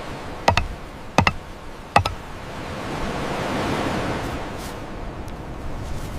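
Four or five sharp knocks in the first two seconds, then a rush of noise that swells to a peak midway and slowly eases.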